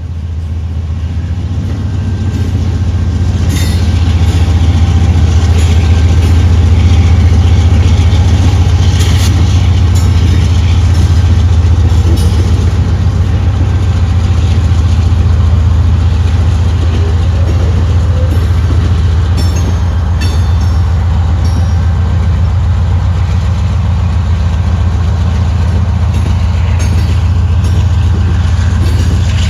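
A CSX GE AC4400CW diesel locomotive running close by: a deep, steady engine rumble that swells over the first few seconds and then holds. Scattered clicks and clanks come from wheels and cars on the rails.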